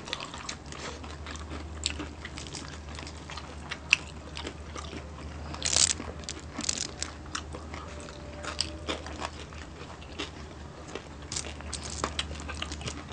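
Two people chewing and crunching food close to the microphone, with scattered short crackles and bites, the loudest a little before six seconds in, over a steady low hum.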